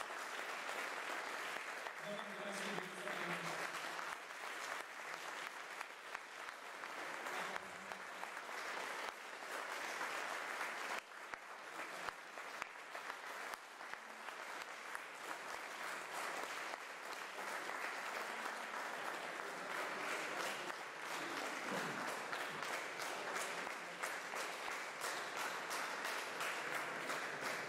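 Concert audience applauding: dense, steady clapping that keeps up throughout.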